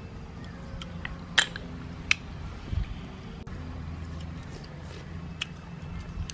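A few sharp clicks and taps of snails being handled and eaten from a banana leaf, the loudest two about a second and a half and two seconds in, over a low steady rumble.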